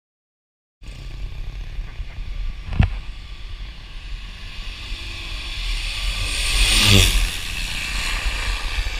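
Cessna Caravan single-engine turboprop flying in low on approach, growing louder to a peak about seven seconds in as it passes close, its pitch falling as it goes by, over a steady low rumble of wind on the microphone. A single sharp knock about three seconds in.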